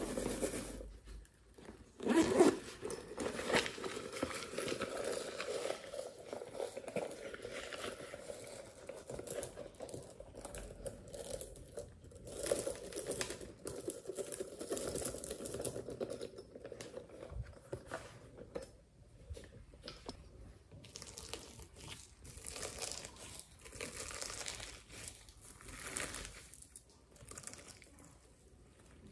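Close-up handling of slime materials: a plastic container is handled and pearl beads are tipped onto a tray of glossy slime covered in sequins, giving rustling and small clicks, with a sharp knock about two seconds in. Near the end the slime is pulled and stretched apart with crinkling sounds.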